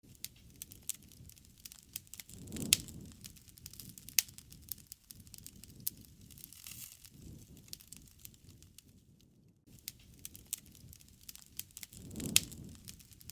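Wood fire crackling, with irregular sharp snaps and pops over a low hiss. Two louder pops stand out, about three seconds in and near the end.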